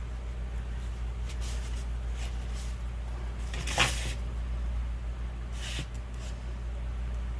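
Short scraping and rustling handling noises as car parts are wiped clean, the loudest about halfway through, over a steady low hum.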